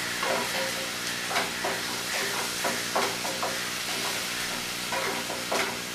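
Ginger-garlic paste sizzling in hot oil in a kadai, fried until its raw smell goes, with a steady hiss and irregular stirring strokes against the pan.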